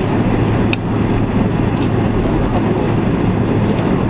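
Cabin noise inside a Boeing 767-300ER taxiing after landing: a steady rumble of engines and airflow with a low hum, and two sharp clicks about one and two seconds in.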